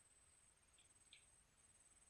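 Near silence: faint, steady, high-pitched insect trilling, with two brief faint chirps about a second in.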